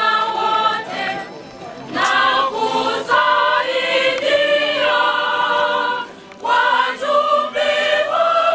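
A choir singing a hymn in phrases of long held, high notes, breaking off briefly between phrases, with no drums heard.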